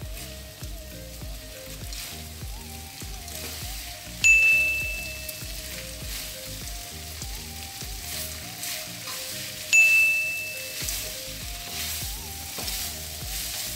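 Rice vermicelli sizzling as it is stir-fried in a frying pan, turned with a wooden spatula and chopsticks, under background music with a repeating melody. Two loud, bright ding tones ring out for about a second each, about four and ten seconds in.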